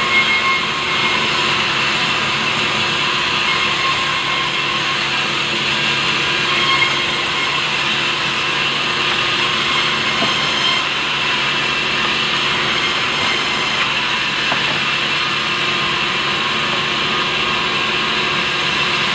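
Large sawmill band saw running steadily while boards of soft timber are pushed through it and ripped into planks: a continuous, even mechanical sound with several steady high tones and no break.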